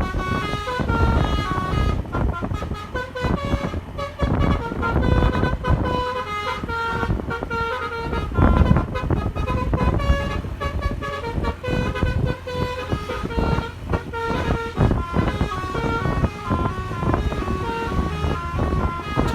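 Bus 'telolet' horn, a multi-tone musical air horn, playing a tune of quick stepped notes over a low rumble.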